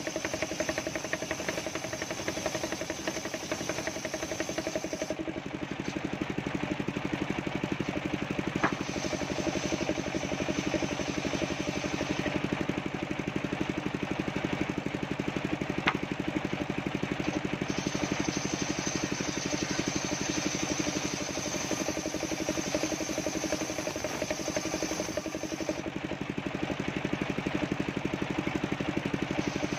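Homemade table circular saw ripping coconut-wood planks, its motor running steadily under the cut. Two sharp ticks come through, one about a third of the way in and one about halfway.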